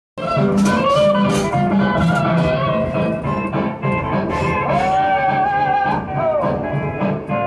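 Music led by guitar, with held notes that slide in pitch about halfway through.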